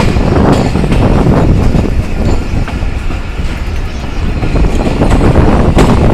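Moving passenger train heard from an open coach window: a loud, steady rumble of the coach wheels on the rails. It dips briefly about halfway through, and sharp wheel clatter over rail joints comes near the end.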